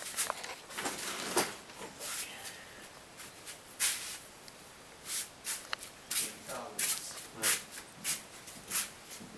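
Newborn Jack Russell Terrier puppies suckling at their mother's teats: irregular wet smacking and sucking clicks, one or two a second.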